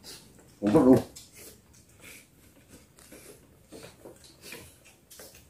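People eating with their hands and spoons: faint chewing, lip smacks and small clicks of spoons on plates. A short voiced sound, a brief word or exclamation, comes just under a second in and is the loudest thing heard.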